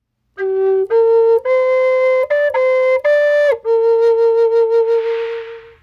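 A wooden shamanic flute playing a slow melody of a few clear held notes that step upward, then settling on one long note with a gentle vibrato that fades away. A soft shushing wash from an ocean rattle joins under the held note near the end.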